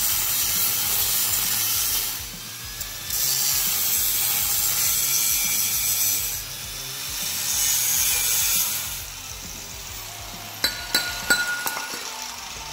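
Angle grinder with a cut-off disc cutting through a steel exhaust pipe, in three stretches of cutting with short let-ups between them. After about nine seconds the cutting stops, followed by a few sharp metallic clinks.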